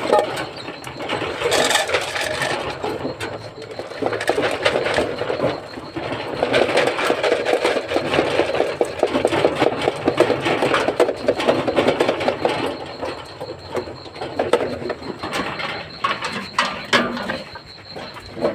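Dogs eating dry kibble: dense, rapid crunching and rattling, loudest in the middle stretch. A steady high insect buzz comes up near the end.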